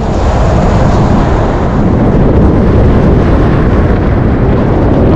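Steady, loud rush of wind and road noise from a vehicle driving at expressway speed, with wind buffeting the microphone.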